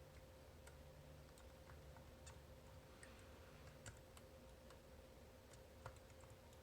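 Faint, scattered metallic clicks of an Abloy Classic disc-detainer cam lock being worked with a homemade pick, over a faint steady hum.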